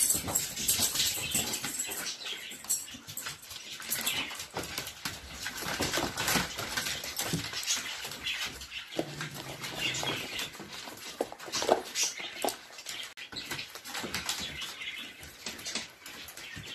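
A litter of young puppies whimpering and squeaking as they jostle at a food dish, with many irregular clicks and knocks of paws and bodies on a hard plastic pool floor.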